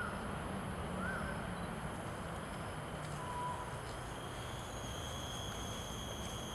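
Steady low ambient rumble with a few short, faint bird notes: one about a second in that rises and falls, and a flat one about three seconds in. A thin, steady high tone starts about five seconds in.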